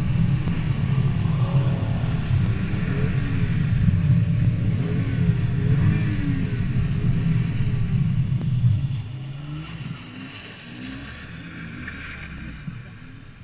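BMW straight-six engine held at high revs during a drift on a wet skid pad, the revs rising and falling with the throttle. About nine seconds in it drops off to a much quieter lower-rev running.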